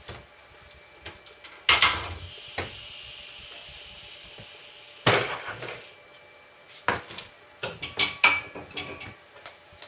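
Heavy steel parts clanking and knocking as they are handled and set down on the steel bed of a hydraulic shop press: a loud clank about two seconds in, another about five seconds in, and a quick run of clanks near the end, the first one leaving a faint metallic ring.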